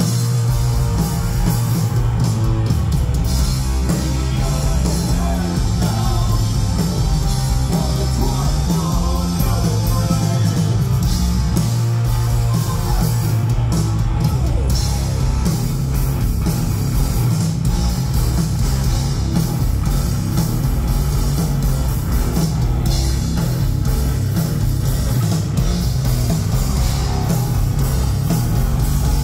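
Rock band playing loud and steady: electric guitar, electric bass and drum kit.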